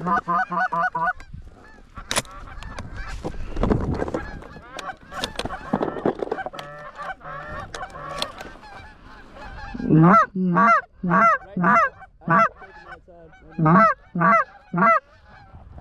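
Canada geese honking. A flock's overlapping honks and cackles run through the first part, then loud, close honks come in quick groups of three or four, about two a second, from about ten seconds in.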